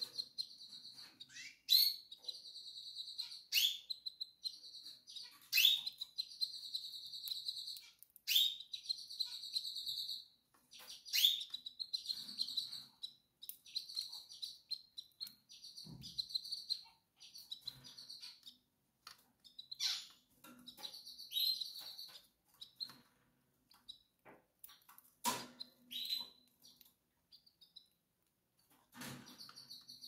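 Canary hen calling to the male, a breeding-condition solicitation call. Repeated chirps, each a quick downward-sweeping note, mixed with held high trills. They come about every two seconds at first, then grow sparser and fainter after the middle.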